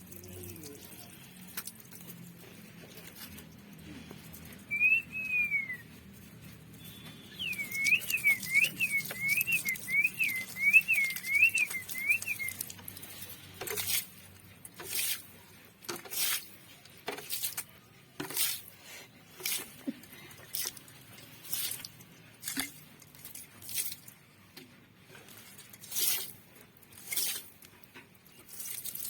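A pet parrot whistles, first one arched note, then a quick run of about seven rising-and-falling whistle notes. After that come short, noisy, patter-like bursts about once a second.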